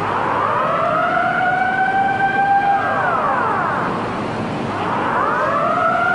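A siren wailing: it sweeps up in pitch and holds, falls about three seconds in, and rises again about five seconds in, over the steady rush of tsunami floodwater.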